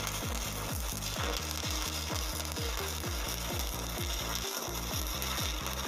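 Stick (shielded metal arc) welding arc burning at about 135 amps while laying a corner fillet weld, a steady hissing crackle. Underneath runs a fast, regular low pulse, about five a second.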